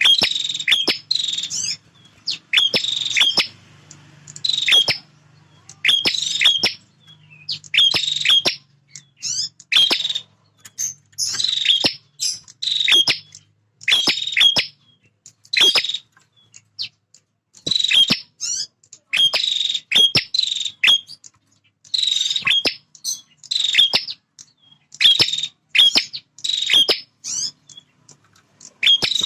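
Male prinia (prenjak) calling loudly and insistently: short bursts of sharp, high chirping notes, repeated about every second with brief gaps.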